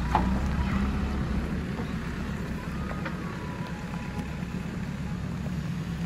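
JCB 3DX backhoe loader's diesel engine running steadily as the backhoe arm swings the bucket down to the ground, with a few faint clinks.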